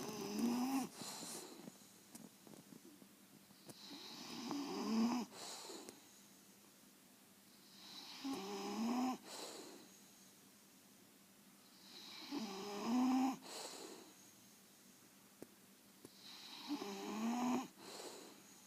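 Snoring: five pitched, rasping snores, one about every four seconds, with quiet breathing between them.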